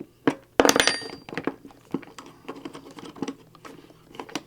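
Small metal parts of a soldering gun being handled: light clicks and clinks, with a louder ringing metallic clatter about half a second to a second in.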